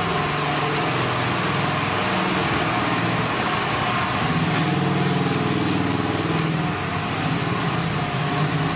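A 125cc petrol quad bike engine running, with its pitch rising and swelling for a couple of seconds in the middle as the throttle opens, then easing back.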